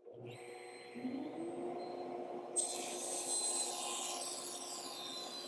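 Table saw switched on: the motor spins up to a steady hum. About two and a half seconds in, a louder high-pitched hiss starts as the crosscut sled carries a stack of plywood pieces into the blade.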